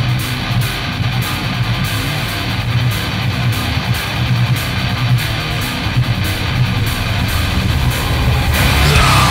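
Melodic death/power metal recording: distorted electric guitars over bass and drums, dense and steady. Near the end it grows louder and a higher held note comes in.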